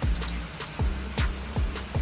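Background music with a steady beat: a deep bass drum that drops in pitch on each hit, about every half second, with ticking hi-hats.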